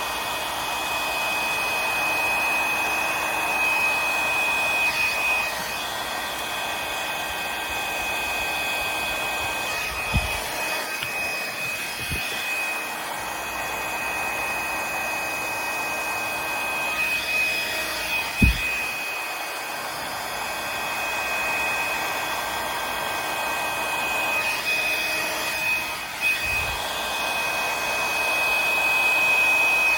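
Hair dryer running steadily with a high whine over its air noise, blowing poured paint out into a bloom. The blowing noise swells and fades a few times, with a few dull low knocks partway through.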